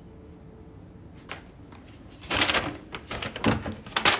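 Brown paper bags rustling and crinkling as they are grabbed and lifted by hand, in three loud bursts from about two seconds in, after one light click about a second in.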